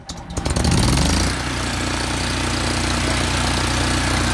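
Miller Bobcat 250 welder-generator's twin-cylinder gasoline engine starting after its oil change and tune-up: it catches about half a second in, revs up, and after about a second settles into steady running.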